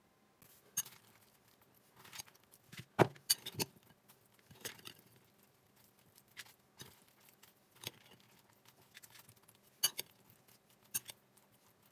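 Salad being tossed in a glass bowl with a metal serving utensil: irregular clinks and taps of metal on glass, the sharpest about three seconds in, with soft rustling of the leaves in between.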